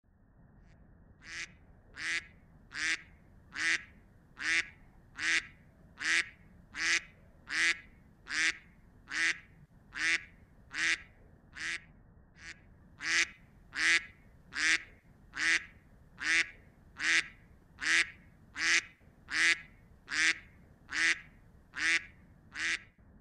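A short, sharp call repeated at a very even pace, about one every 0.8 seconds, over a faint low hum; it begins about a second in.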